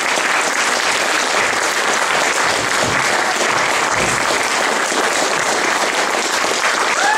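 Audience applauding steadily at a curtain call, a dense, unbroken clapping.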